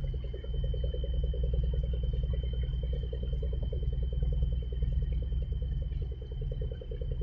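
Deep, steady rumble with a fast, even pulsing throb from a large container ship's engine and propeller as it passes close by. A thin steady high whine runs over it.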